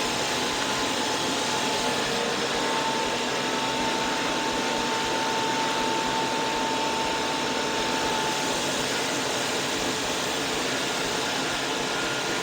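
Electric sander running steadily in the background: an unbroken whir with a faint steady whine.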